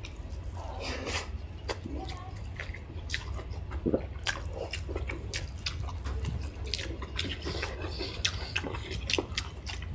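Close-up eating sounds: wet chewing and lip smacks with scattered sharp clicks, over a low steady hum.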